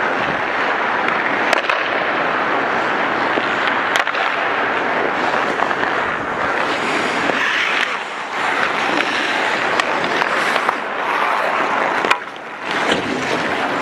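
Ice-hockey skate blades scraping and carving the ice, with goalie gear rubbing close by: a steady, scratchy hiss. A few sharp clacks of sticks and pucks cut through it, about a second and a half in, about four seconds in and near the end.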